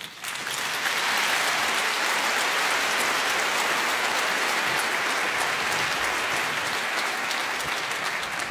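Large audience applauding, swelling in within the first second, holding steady, and beginning to die down near the end.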